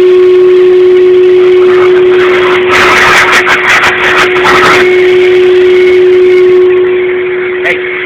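Handheld hair dryer running steadily with a loud, even motor hum. In the middle, about two seconds of choppy rushing noise break in over the hum.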